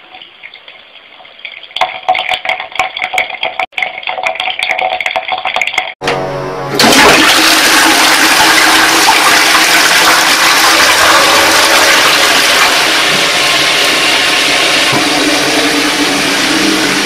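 Toilet flushing: a loud, steady rush of water that starts suddenly about seven seconds in, after several seconds of quieter music.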